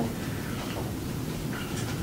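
Steady low room rumble (room tone), with a faint short hiss near the end.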